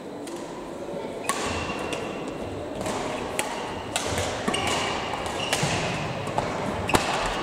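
Badminton rackets striking shuttlecocks in a large sports hall, sharp echoing cracks at irregular intervals about once a second, with short high shoe squeaks on the court floor and a low murmur of voices.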